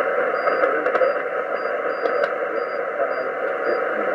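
Kenwood TS-450S HF transceiver in upper sideband mode giving out steady shortwave static hiss on an empty channel, with a few faint, short, high-pitched blips.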